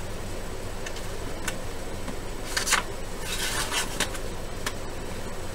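Scissors snipping through a sheet of fish paper: a short cut a little past two and a half seconds in, then a longer stretch of cutting a little after three seconds, over a steady low hum.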